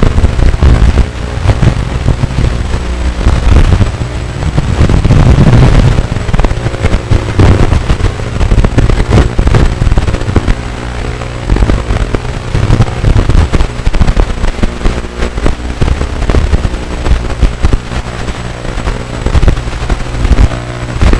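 Small quadcopter's electric motors and propellers picked up by its onboard camera microphone: a loud, distorted buzz and rumble, with constant crackling and popping from vibration and air buffeting.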